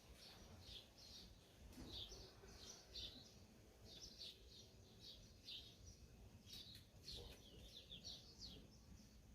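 Faint chatter of small birds: many short, high chirps, mostly falling in pitch, several a second.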